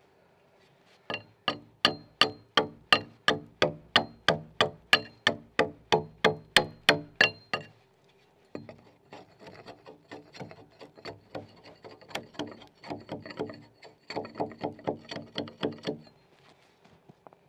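Hand axe chopping into a log to cut a corner notch: a fast run of even, sharp strokes, about three a second, for some six seconds, then lighter, less regular cuts with a brief harder flurry near the end.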